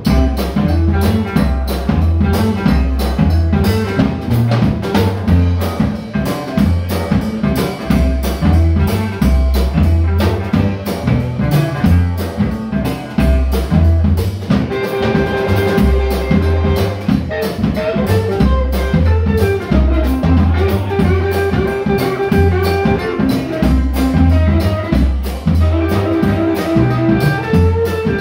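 Live blues band playing an instrumental stretch with no singing: electric guitar over a drum kit and a walking bass line, at a steady beat.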